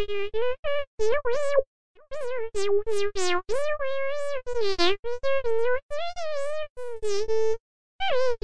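Digitalker speech-synthesizer chip producing a fast run of short electronic, syllable-like utterances at a fairly high, nearly level pitch. The utterances are separated by dead-silent gaps.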